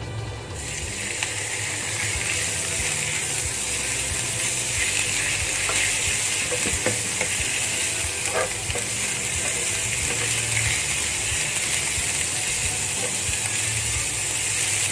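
Thin slices of raw beef sizzling in hot oil in a nonstick frying pan over high heat, stir-fried with fried garlic and ginger. The sizzle starts about half a second in and grows louder over the first couple of seconds, with a few scrapes and taps of a wooden spatula.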